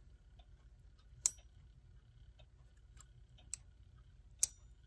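Faint clock ticking about once a second, broken by three louder sharp clicks, the last near the end the loudest.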